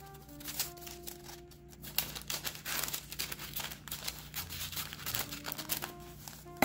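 Scissors snipping through parchment paper, with repeated crisp cuts and the paper crinkling as it is handled, over soft background music with held notes.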